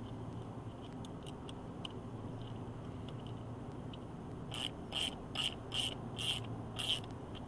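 Sharp metal clicks of a 3/8-inch ratchet turning the belt tensioner's square drive: a few faint ticks, then six clear clicks about two a second in the second half, over a steady low hum.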